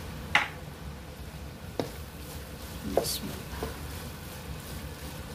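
A spoon knocking and scraping against a cooking pan while stirring minced chicken, four sharp knocks with the first the loudest, over a low steady hum.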